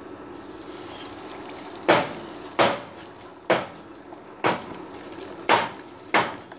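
A series of six sharp knocks at roughly one-second intervals over a steady background hum.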